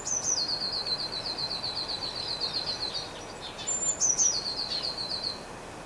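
A songbird singing two phrases, each a short high note followed by a fast, even trill of about ten notes a second, the second phrase starting a little after halfway.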